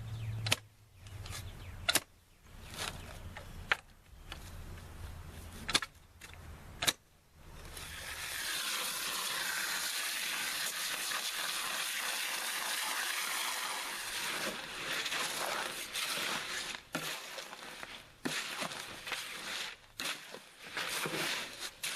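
Digging post holes in soil: a series of sharp chops and scrapes from a digging tool striking the ground, about one a second, then about six seconds of steady hissing noise, then more scattered knocks.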